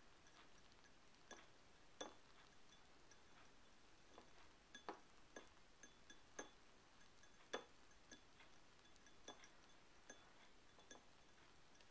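Foam head on a glass of freshly poured beer crackling as it settles: faint, irregular tiny pops of bursting bubbles, a few a second.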